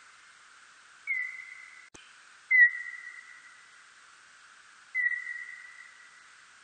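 Birdlike noctule (Nyctalus aviator) bat calls, heard as three whistle-like tones, the middle one loudest. Each dips briefly in pitch at the start, then holds steady and fades over about a second, over a steady hiss. A short click comes just before the second call.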